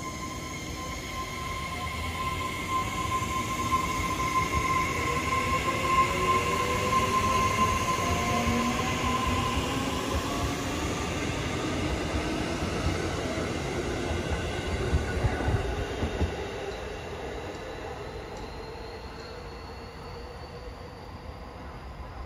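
JR Kyushu 811 series electric train pulling away from a station: its traction motors whine, rising in pitch as it gathers speed, over wheel and rail rumble. There is a steady high tone for the first half. The sound grows louder as the cars pass, then fades after about two thirds of the way through as the train draws away.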